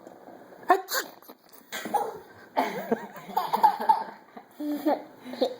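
A few short, sharp fake sneezes, followed by bouts of laughter.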